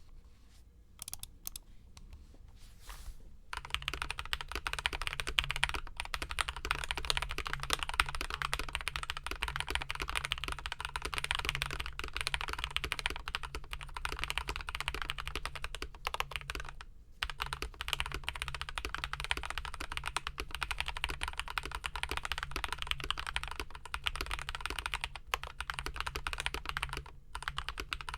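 Typing on a TY104 full-size mechanical keyboard with lubed Aflion Ink tactile switches, a steel plate, case foam and Cherry-profile keycaps. A few scattered key presses, then a fast, steady run of keystrokes broken by a few short pauses.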